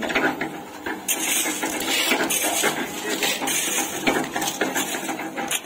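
Half-bag mini tilting-drum concrete mixer with a 2 HP single-phase electric motor running, its drum turning with a continuous metallic rattle and clatter over a steady hum.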